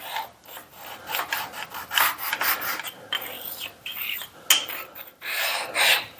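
A deburring stone rubbed back and forth over the edge of a freshly milled metal part, a series of irregular scraping strokes.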